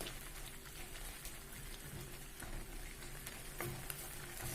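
Chicken pieces frying in onion-tomato masala in a kadai: a soft, steady sizzle with faint crackles.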